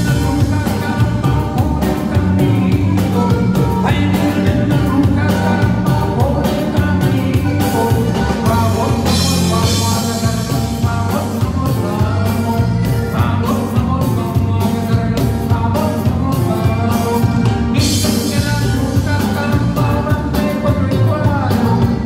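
Cumbia band playing live on accordion and bajo sexto over a steady beat.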